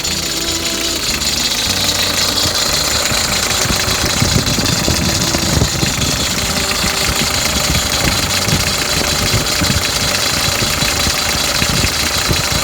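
Hyundai HR's diesel engine idling while its power-steering drive belt squeals in a steady high pitch. Candle wax is being rubbed onto the slipping belt to quiet it, and the squeal begins to change.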